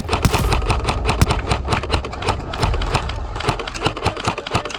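A fast, uneven run of sharp clicks and knocks, several a second, over a steady low rumble.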